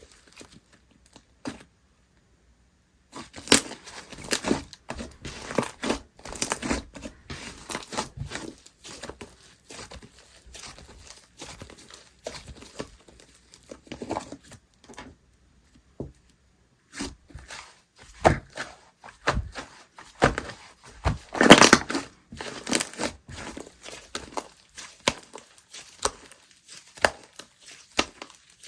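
Slime being stretched, pressed and poked by hand: irregular sticky crackles, pops and tearing sounds. There is a short silent gap about two seconds in, and a dense, loud run of pops about three quarters through.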